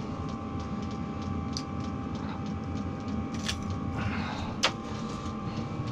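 Steady hum of a diesel heater running, with a faint steady whine, and a few light clicks from fishing tackle being handled; one sharp click about four and a half seconds in is the loudest.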